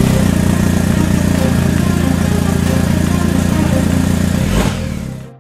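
Motorcycle engine running steadily at a loud, even level, then fading out about five seconds in.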